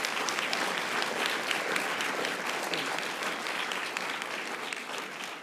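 Audience applauding, a steady patter of many hands clapping that begins to thin out near the end.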